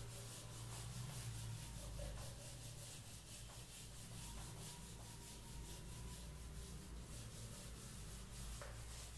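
Faint rubbing of a felt whiteboard eraser wiped back and forth across a whiteboard in a steady series of strokes, over a low steady hum.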